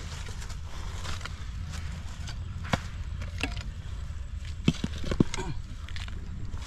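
Small hand hoes chopping and scraping into dry, packed soil, dug slowly and carefully, with a handful of sharp knocks in the second half.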